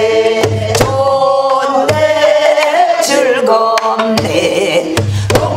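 A woman singing a Namdo folk song in a bending, held-note voice, accompanied by a Korean buk barrel drum: sharp stick strokes and deep thumps keep the rhythm.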